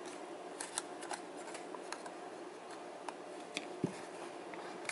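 Faint, scattered small clicks and scrapes of fingers working at the snapped-together plastic case of a Vivitar VIV-QCB-104 battery charger, trying to pry it open.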